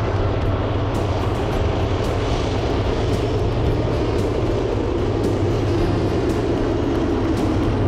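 Canadian Pacific diesel freight locomotives passing close by: a steady, heavy engine drone with a low hum, with a few faint ticks over it.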